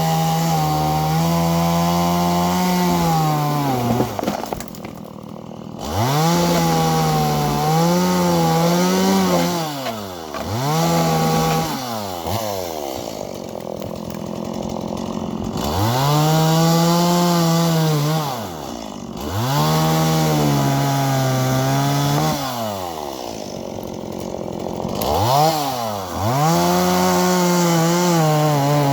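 Chainsaw cutting firewood, repeatedly revved up to a high steady full-throttle whine for a few seconds at a time and dropped back toward idle between cuts, about six times.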